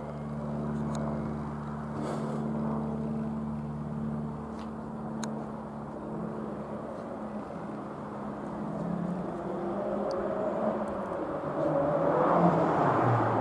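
Van's RV-7A light aircraft's single piston engine and propeller droning as it flies overhead. The drone shifts in pitch partway through and grows louder, peaking near the end as the aircraft passes closest.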